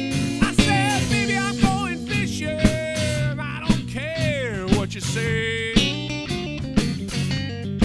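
Rock band playing an instrumental break: electric guitar playing a lead line with bent, gliding notes over electric bass and a drum kit keeping a steady beat.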